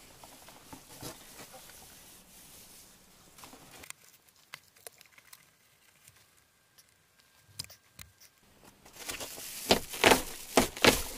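Rustling, crinkling and tearing as polyethylene foam insulation (izolon) is pulled down off a ceiling, with scattered light knocks. There is a near-quiet stretch in the middle, then a louder run of tearing and crinkling near the end.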